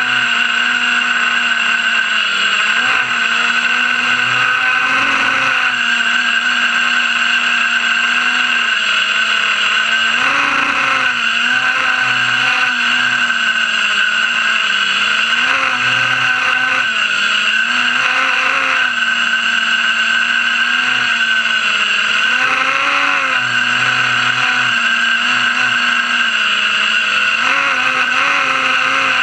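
FPV racing quadcopter's brushless motors and propellers whining continuously, the pitch dipping and climbing again every few seconds with throttle changes, heard close up from the drone's onboard camera.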